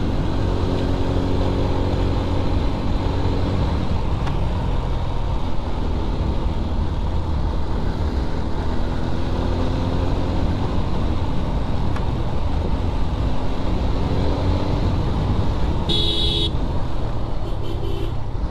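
Motorcycle engine running while riding, its pitch rising and falling with the throttle, over heavy wind rush on the microphone. A horn beeps once about sixteen seconds in, then twice more, faintly and briefly.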